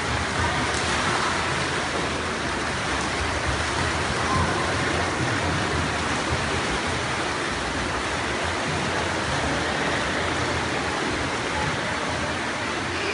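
Splashing of many children swimming laps in a pool at once, merging into a steady wash of water noise.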